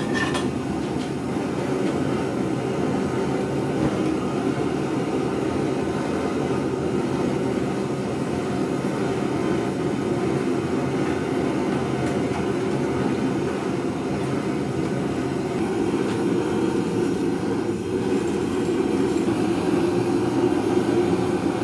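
Forge running with a steady, even rush while an axe head heats toward hardening temperature; it grows a little louder near the end. A short click sounds right at the start.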